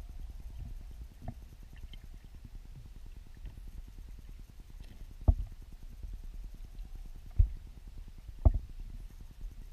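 Muffled low rumble of weir-pool water heard through a submerged camera, with three dull knocks a little past halfway and near the end, the loudest sounds.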